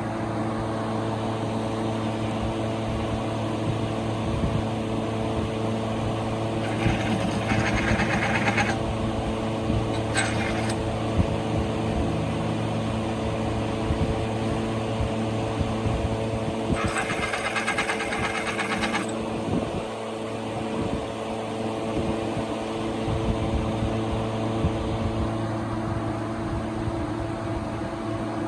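Toyota Premio's 1ZZ 1.8-litre four-cylinder engine running at a steady idle. Two bursts of hissing, each about two seconds long, come in about seven and seventeen seconds in, with a shorter one in between.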